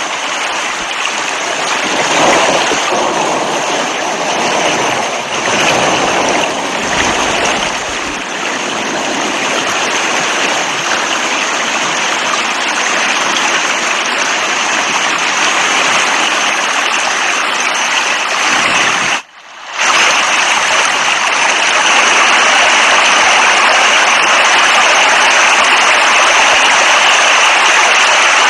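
Heavy rain pouring as a steady rushing hiss. About two-thirds of the way through it cuts out for under a second, then resumes a little louder and more even.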